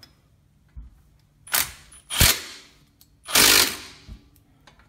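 Power tool on a socket extension driving the brake caliper guide-pin bolts home in three short bursts, the last the longest at about half a second.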